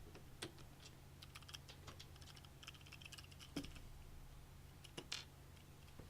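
Faint, scattered clicks and light taps of small computer hardware being handled during a PC build, with two slightly louder knocks about three and a half and five seconds in, over a faint steady low hum.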